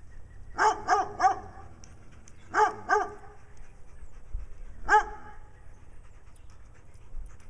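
A dog barking in short bursts: three quick barks less than a second in, two more about a second and a half later, then a single bark about two-thirds of the way through.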